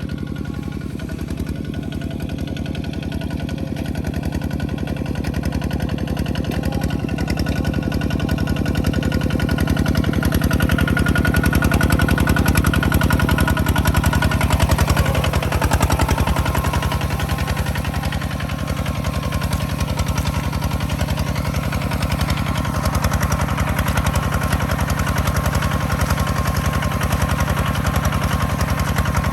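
Farm machine engine running steadily under load. It grows louder about ten seconds in, then eases slightly and holds steady.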